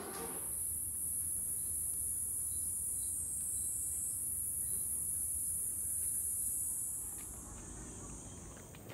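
A steady, high-pitched chorus of cicadas in the trees, dropping slightly in pitch near the end.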